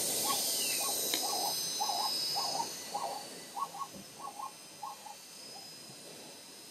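A series of short hooting animal calls, about two a second and some in quick pairs, that fade out after about five seconds. A steady hiss runs under the first half.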